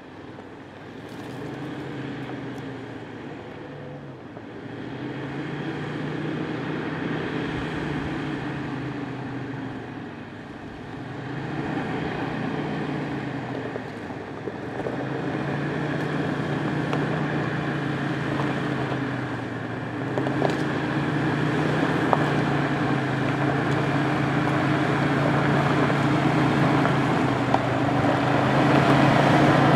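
2005 Jeep Wrangler Rubicon's 4.0-litre straight-six engine running at low revs as it crawls down a rocky dirt trail. The engine note rises and falls every few seconds with the throttle and grows steadily louder as the Jeep comes closer, loudest near the end.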